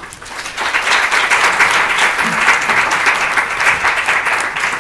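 Audience clapping, a dense patter of many hands that builds up within the first second.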